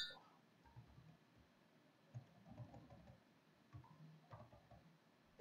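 Near silence, broken by a few faint, scattered computer keyboard key clicks.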